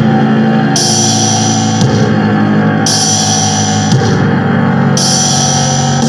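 Funeral doom music: slow, heavy sustained chords change about every two seconds. A bright hissing wash comes in about a second into each chord.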